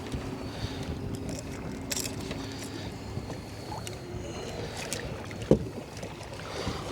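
Small fishing boat under way at trolling speed: a steady motor hum with wind and water noise, and a sharp knock about five and a half seconds in.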